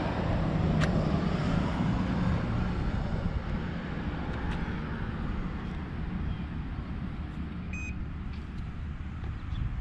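ChargePoint charging station's card reader giving one short, high beep as a ChargePoint card is held to it, a little before the end, over a steady low rumble.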